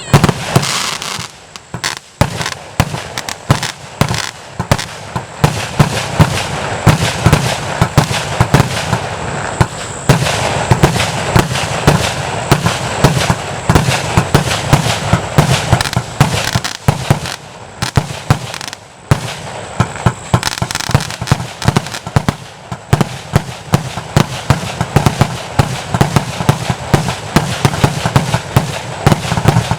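'Sound of Thunder' firework going off in a continuous rapid barrage of bangs and crackling, with loud reports coming several times a second and the firing starting right at the beginning.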